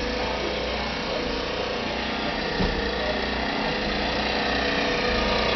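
Small portable generator engine running steadily outside, heard from inside the cabin, growing slightly louder near the end; it powers the electric motor of a water-well pump jack.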